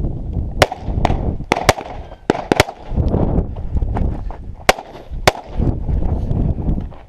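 Pistol shots, about eight, fired in quick pairs and short strings with pauses between the groups, over a low rumble.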